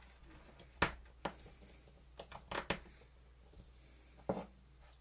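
A few short, sharp clicks and light knocks of small hand tools being picked up and handled on a jeweller's workbench, the loudest about a second in.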